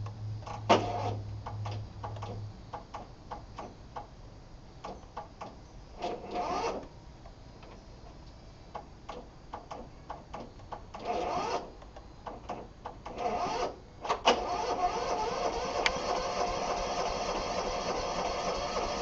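Starting attempt on a John Deere RX75 riding mower with a 9 horsepower Kawasaki engine: clicks and knocks, three short bursts of the electric starter cranking, then a steady running sound from about fourteen seconds in. The owner afterwards puts the trouble down to a battery that needs charging.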